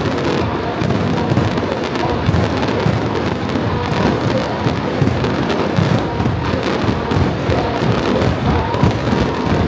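Aerial fireworks display, with a continuous rapid stream of bangs and deep booms from bursting shells, and music playing along with it.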